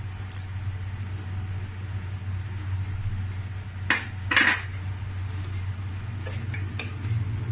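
Kitchenware clinking and knocking, with two loud knocks about four seconds in and a few lighter clicks near the end, over a steady low hum.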